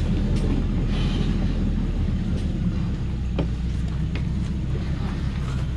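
Diesel engine of a Thaco Forland truck running low and steady as it crawls along a rough forest track under an 18.2-tonne load of acacia logs, with a few sharp clicks scattered through.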